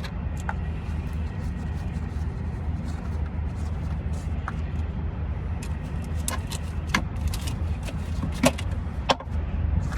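Steady low rumble of a running engine nearby, with several short sharp metallic clicks and knocks of hand tools being handled, most of them in the second half.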